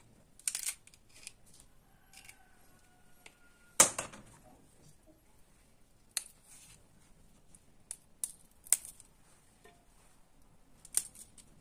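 Fresh snow-pea pods being snapped and stringed by hand: a series of about eight crisp, sharp snaps at uneven intervals, the loudest about four seconds in.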